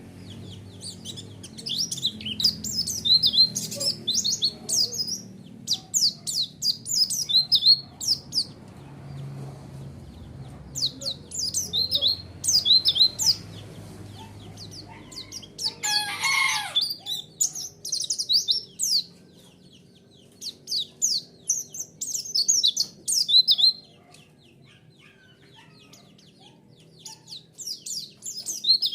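White-eye (pleci) song: rapid, high twittering chirps in phrases of one to two seconds, repeated with short pauses. About halfway through there is one lower call that slides downward.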